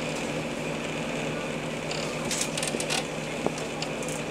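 Steady low machinery hum on board a boat, with a few brief hissing rustles about two to three seconds in.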